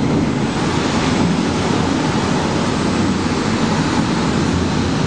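Loud steady rush of airflow over a glider's canopy and airframe as the aircraft pulls out of the dive after recovering from a spin, with airspeed built up.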